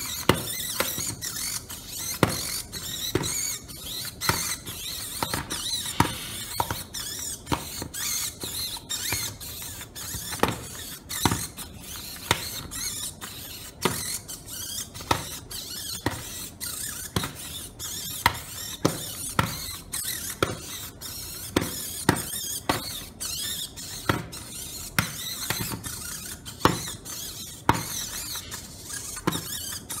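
Self-solving Rubik's cube turning its own faces: its internal motors whir steadily while the layers snap into place with sharp clicks, roughly once or twice a second, as it works through a full solve.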